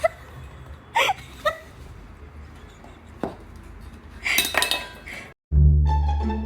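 A few short clinks and knocks, then a longer clatter like dishes or utensils, after which plucked string music starts suddenly near the end and is the loudest sound.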